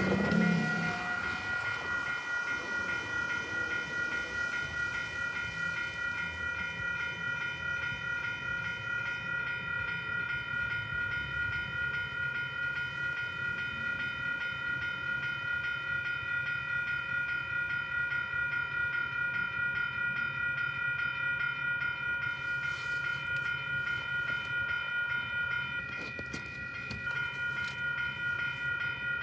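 Railroad crossing warning bells ringing steadily in a quick even rhythm, the signal that a train is approaching, heard from inside a car over a low steady hum.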